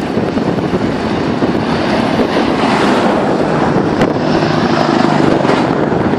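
Wind buffeting the microphone of a moving bicycle, with a heavy truck driving past in the other direction; its engine and tyre noise swell through the middle and fade as it passes.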